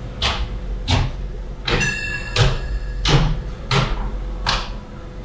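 Footsteps on a hard floor at a steady walking pace, about one step every 0.7 seconds, each a dull thud with a scuff. A brief high-pitched tone sounds about two seconds in.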